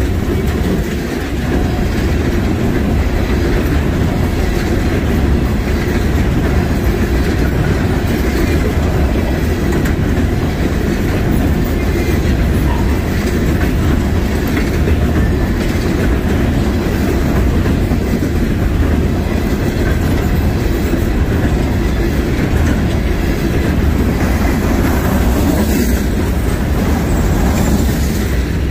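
Freight train cars rolling past, a steady loud rumble of steel wheels on the rails.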